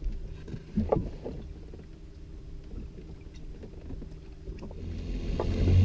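A boat's outboard motor running low and steady, with a few short knocks about a second in; from about four and a half seconds in the motor and water noise grow much louder.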